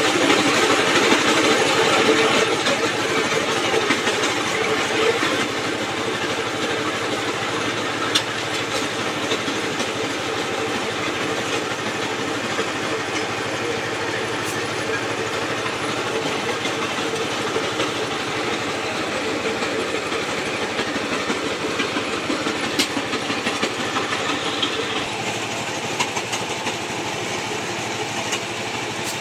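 Engine-driven brick-crushing machine running steadily, breaking bricks into chips, with a few sharp knocks now and then. It is a little louder in the first few seconds.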